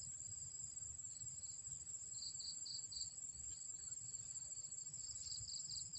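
Insects calling: a steady high-pitched trill, with groups of quick chirps a little lower that come and go, over a faint low rumble.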